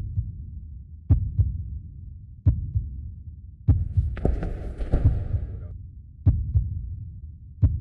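Slow, deep heartbeat sound effect: paired lub-dub thumps about every 1.2 seconds. A burst of hiss comes in about four seconds in and lasts under two seconds.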